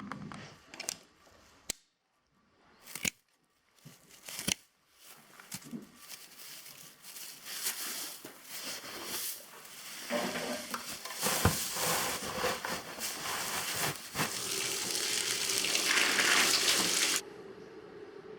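A few scattered clicks and knocks, then water running in a steady hiss that grows louder and is shut off suddenly near the end; it is water being added to feed to soak.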